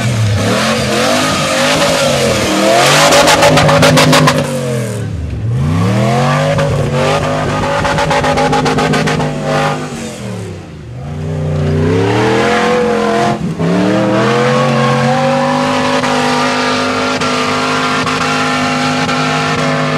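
Modified Jeep Wrangler off-road competition vehicle's engine revving hard at high revs under full throttle on a steep dirt climb. Its pitch drops and climbs back up twice. There is a loud burst of rapid clattering about three seconds in.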